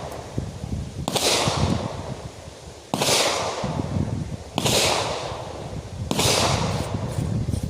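An AR-15 chambered in 350 Legend fired four times in steady succession, about one shot every 1.7 seconds, each report trailing off in a rolling echo.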